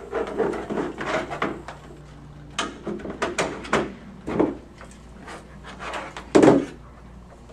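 Clicks and knocks of a GE Simon XT alarm panel's plastic housing and parts being handled and set down on a table, with a louder thud about six and a half seconds in.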